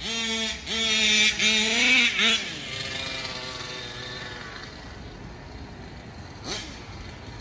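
Taylor 35cc two-stroke engine of a KM Baja 5T RC buggy with an Olimat pipe, revving hard in three or four quick surges, rising in pitch each time, over the first two seconds or so. It then fades and drops lower as the buggy drives away, with one short throttle blip near the end.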